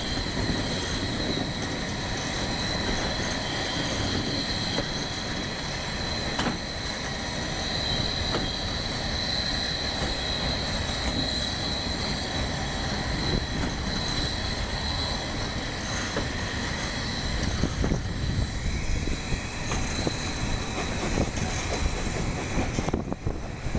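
Wheels of narrow-gauge passenger carriages running through a tight curve: a steady high-pitched flange squeal over the rolling rumble of the train, with a few sharp clicks from the track. The squeal stops near the end.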